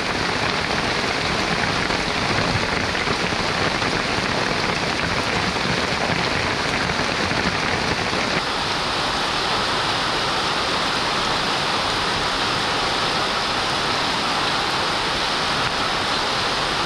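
Heavy rain falling steadily in a dense, even hiss. About halfway in the sound turns smoother and brighter.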